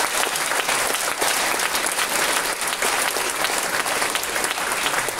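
Audience applauding steadily, the dense clapping of many hands in a theatre hall.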